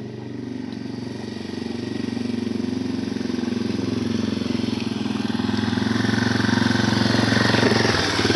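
A small off-road bike's engine running steadily as it is ridden over gravel toward the listener. It grows louder from about two seconds in and is loudest near the end as it passes close.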